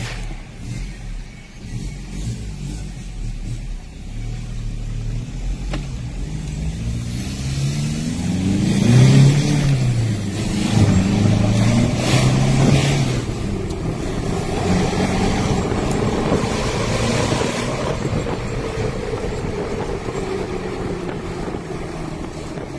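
Ford 2.2-litre four-cylinder turbodiesel, fitted with an F5V billet-wheel turbo, accelerating hard, heard from inside the cabin. Engine pitch climbs, drops at an upshift about ten seconds in, climbs again and drops at a second shift a few seconds later, then settles into steady cruising. A hiss comes in near the top of the second gear.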